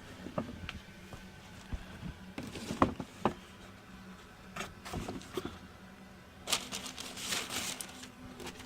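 Hands handling a pair of sneakers and their packaging: scattered light clicks and knocks, with a brief rustle about six and a half seconds in, over a low steady hum.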